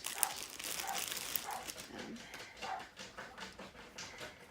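Plastic packaging crinkling and rustling as it is handled, fading toward the end, with several short high-pitched squeaks or whimpers in the first few seconds.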